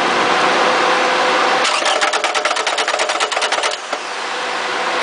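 Toyota 2AZ-FE four-cylinder engine being turned over on the starter without firing. About a second and a half in, a rapid knocking at roughly ten a second comes in over the cranking for about two seconds: the knock from the starter area that is being looked for.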